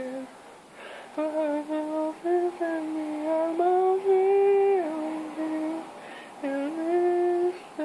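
A lone voice singing a wordless melody unaccompanied, in a string of held notes that step up and down, the longest rising and held in the middle before dropping away.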